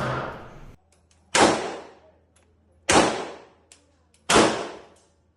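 Firearm shots at a shooting range, a light-recoil gun fired three times about a second and a half apart, each crack ringing off briefly. The tail of a previous shot fades at the start, and another shot goes off right at the end.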